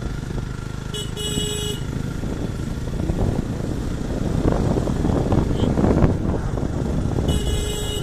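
Motorcycle riding along, with engine and wind rumble that grows louder partway through. A horn gives two short beeps, one about a second in and one near the end.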